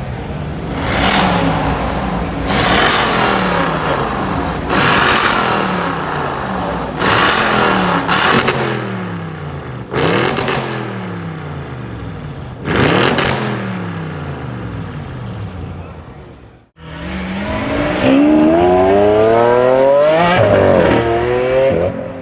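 Straight-piped Audi RS6 Avant C7's twin-turbo V8 revved about seven times, each blip sharp and dying away slowly. After a sudden cut, the car accelerates hard with the engine pitch climbing steadily, the loudest part.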